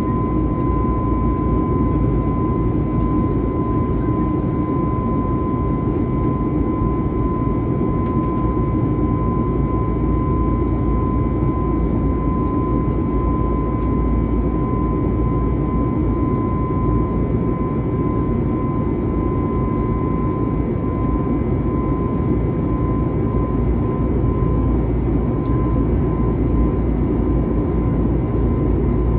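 In-cabin sound of an Airbus A321neo in flight over the wing: its CFM LEAP-1A turbofans and the rushing airflow make a steady, deep rumble with a constant high tone running over it.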